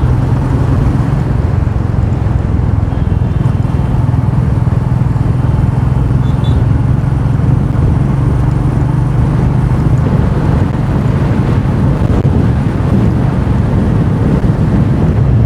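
Royal Enfield Meteor 350's single-cylinder engine running steadily while riding, with wind rush and road noise over a helmet-mounted camera.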